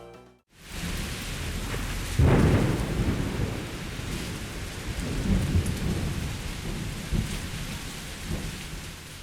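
Thunderstorm: steady rain with a loud thunderclap about two seconds in, followed by rolling rumbles of thunder that fade out near the end.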